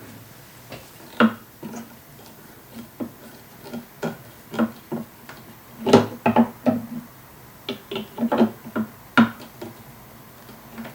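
Irregular clicks and knocks of hard statue parts being handled and pressed into place, a dozen or so taps in clusters, loudest about six seconds in.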